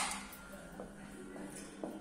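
The fading tail of a toy pistol shot, then a few faint clicks of a plastic toy gun being handled and set down on a table.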